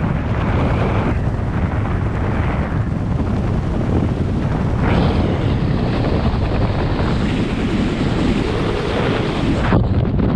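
Freefall air rushing past the skydiver and buffeting the microphone, a steady dense roar. About a second before the end it cuts off sharply as the parachute opens, and rapid flapping of canopy fabric follows.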